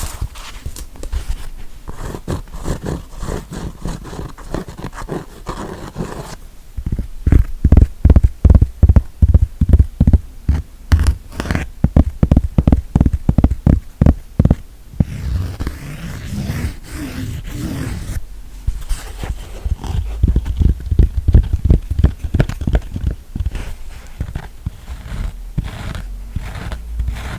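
Fingers tapping and scratching on an object held close to the microphone, with a fast run of sharp taps in the middle and softer scraping around it.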